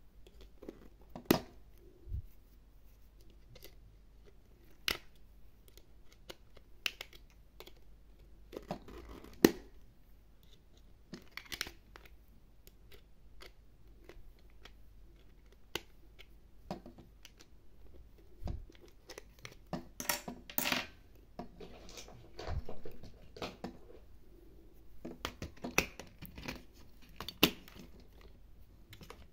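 Small screwdriver clicking and scraping in the screw of a plastic toy's battery cover, with knocks and rattles of the hard plastic casing as it is handled and the cover is taken off. Irregular, separate clicks, with a busier patch of scraping about twenty seconds in.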